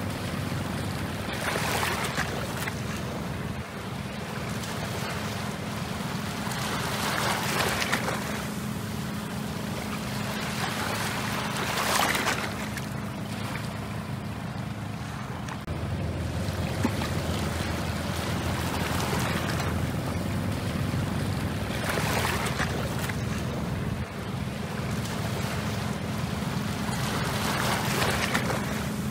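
Steady low drone of a boat engine under a rushing wash of wind and water that swells and fades every few seconds.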